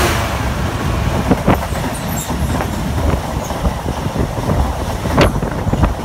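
Freight train's loaded flat wagons rolling past at speed: a steady rumble of wheels on rail, with sharp clacks about one and a half seconds and five seconds in.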